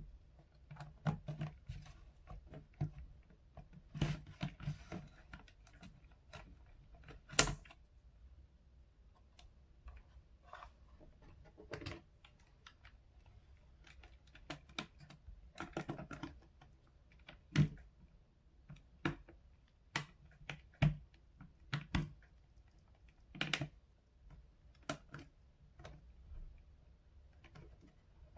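Irregular clicks, taps and knocks of hands handling and prying at the case of a Logitech G915 TKL low-profile mechanical keyboard while it is taken apart, with a few sharper knocks among the lighter clicks.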